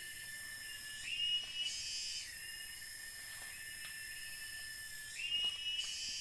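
Cicadas keep up a steady high-pitched drone that twice steps up in pitch and swells louder for about a second before settling back.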